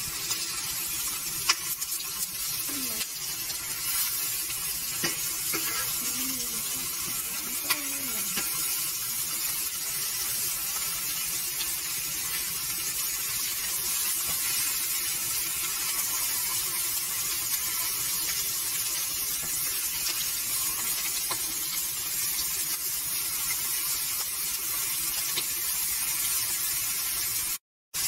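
Atlantic herring frying in hot oil in a pan, a steady sizzle, with a couple of sharp clicks. The sound cuts out for a moment near the end.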